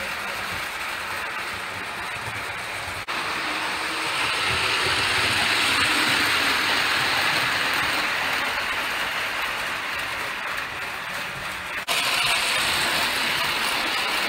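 Prewar Lionel tinplate train running fast on three-rail track: the die-cast 226E steam locomotive's motor and gears whirring and the passenger cars' metal wheels clattering steadily over the rails. It gets louder as the train passes close, with two brief drops in sound.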